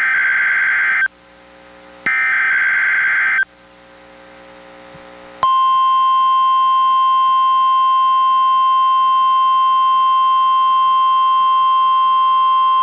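NOAA Weather Radio required weekly test: two screechy SAME digital header bursts of about a second each, a second apart, then a steady single-pitch 1050 Hz warning alarm tone that starts about five seconds in and holds.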